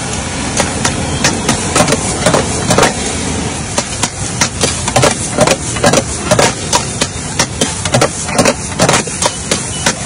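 Metal ladle and spatula clanking and scraping against a large metal wok as egg fried rice is stirred and tossed, several irregular strikes a second, over a steady low rumble.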